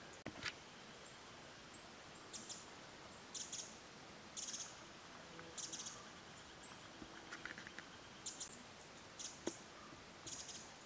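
A small bird giving short buzzy calls, repeated about once a second, over quiet forest background, with a couple of faint knocks.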